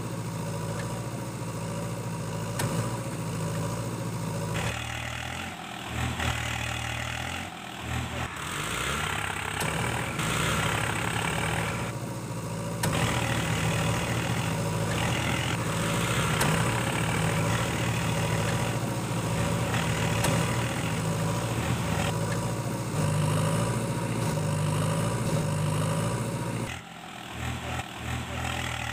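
Engine idling sound: a steady low hum that changes abruptly about five seconds in and again near the end, louder and brighter through the middle stretch.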